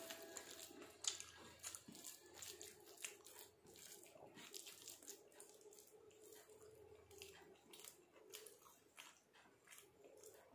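Faint eating sounds: chewing, and fingers mixing rice on a steel plate, with scattered small clicks.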